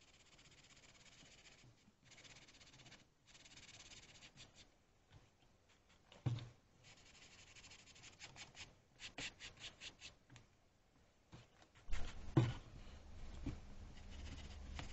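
Faint scratchy rubbing of folded abrasive paper worked by hand over a small emblem on a cloth, with a quick run of short strokes in the middle. Two soft knocks, one near the middle and one near the end, are the loudest sounds.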